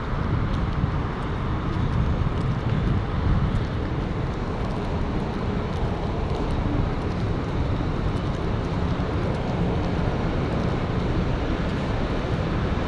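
Steady road traffic noise, mostly a low rumble, heard from a pavement next to a busy road.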